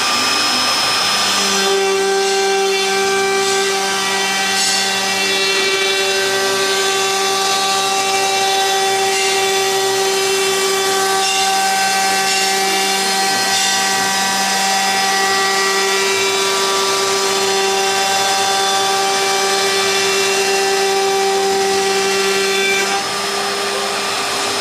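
CNC router spindle running with a steady whine while its bit cuts MDF, with the hiss of the cut under it. The sound drops slightly about a second before the end.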